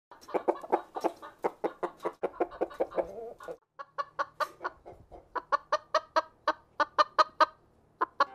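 Chicken clucking rapidly, several short clucks a second, in two long runs with a brief pause about three and a half seconds in.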